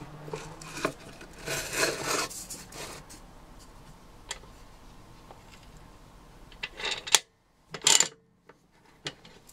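Rectangular aluminium profile sliding and scraping against the steel vise and bed of a small metal-cutting band saw as it is repositioned by hand, with scattered clicks. There is a sharp knock about seven seconds in and a short metal clatter about a second later.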